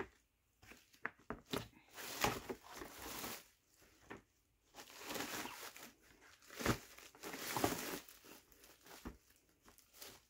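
A hard plastic shelf knocking and clicking against its plastic poles as it is fitted and pressed down by hand, with stretches of crinkling plastic wrap in between. The sharpest knock comes about two-thirds of the way through.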